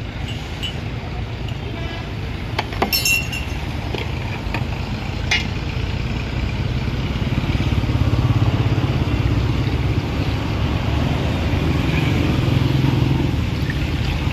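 A motor vehicle engine running steadily, growing louder in the second half. A spoon clinks against a steel jug a few times, about three and five seconds in.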